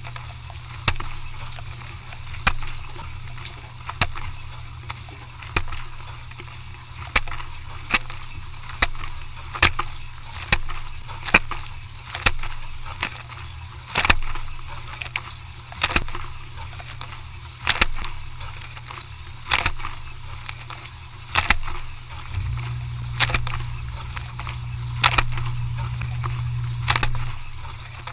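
A machine running with a steady low hum and sharp clacks about once a second. The hum grows louder about two-thirds of the way through, for roughly five seconds.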